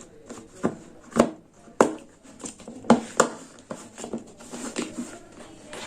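Hard plastic parts of a Black+Decker wet-and-dry vacuum cleaner being handled and fitted together as the filter is seated and locked: a series of irregular sharp clicks and knocks.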